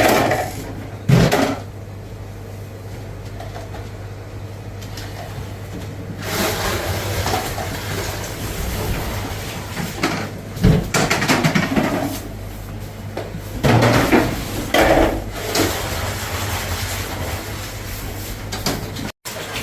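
Milk jugs being handled at a cheese vat: several sharp knocks and clanks over a steady low hum, with a stretch of rushing noise from about six seconds in.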